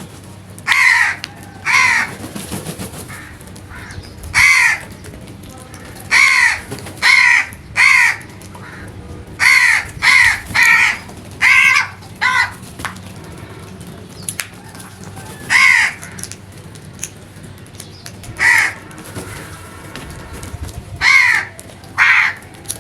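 Crows cawing: about fifteen loud caws, some single and some in quick runs of two to four, at irregular intervals.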